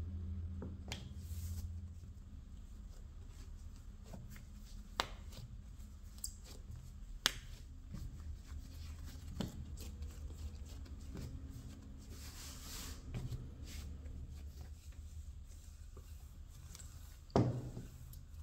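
Hand-shaping bread dough on a wooden board: soft scattered taps and knocks from a bench scraper and hands handling the dough, with a brief rubbing rustle near the middle and a heavier knock near the end as the wooden rolling pin comes in, all over a steady low hum.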